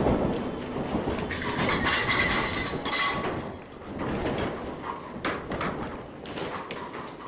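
Seven-story wood-frame building shaking on a shake table in a simulated earthquake: dense creaking, knocking and rattling of the timber structure, with short squeaks, growing quieter over the second half.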